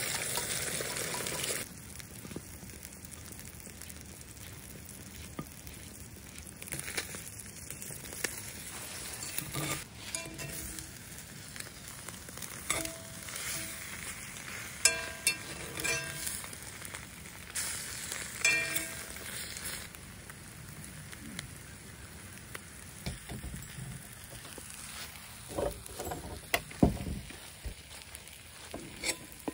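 Beaten eggs sizzling in a hot cast iron skillet with sausage slices, loud for the first second or so as they are poured in, then settling to a quieter steady frying. A metal utensil scrapes and taps against the pan as the eggs are stirred and scrambled, with a few sharper knocks near the end.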